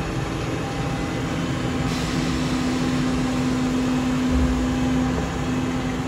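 New Holland CR890 combine harvester driving slowly past, its engine running with a steady hum over a broad mechanical noise, and a deeper rumble that swells about four seconds in.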